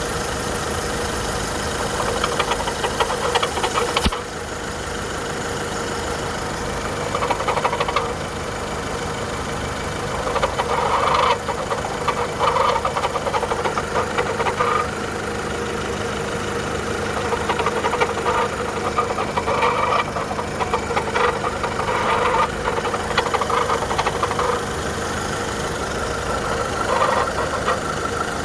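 Volkswagen Polo 1.4 petrol engine idling steadily, with a strange rattling noise that comes and goes every few seconds, which the owner puts down to the timing belt. A sharp click about four seconds in.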